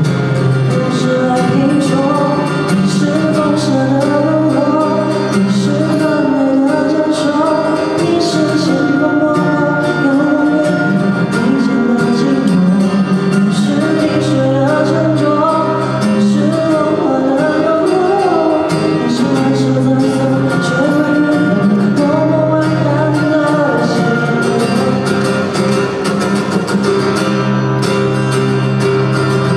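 A man singing into a microphone while strumming an acoustic guitar, amplified through the stage PA. Near the end the voice drops out and the guitar plays on.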